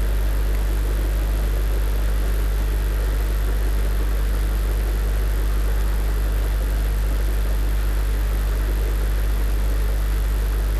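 Steady low hum over an even hiss, unchanging throughout, with no knocks or tool sounds.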